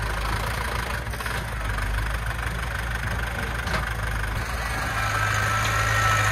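Diesel engine of a loaded Hoa Mai dump truck running steadily at low revs, getting a little louder about five seconds in, with a faint high whine near the end.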